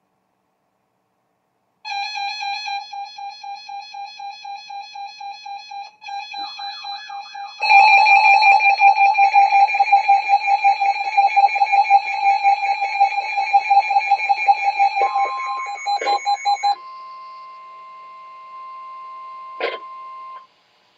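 Electronic emergency-alert warning tones: a rapidly beeping tone, about three beeps a second, starts after a couple of seconds of silence and grows louder and busier about halfway through. It then gives way to a quieter steady two-note tone that cuts off near the end.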